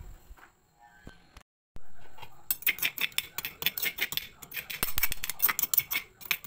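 Metal spoon scraping and clicking against a stone mortar as the garlic paste is scooped out: a quick run of short scrapes that starts a couple of seconds in.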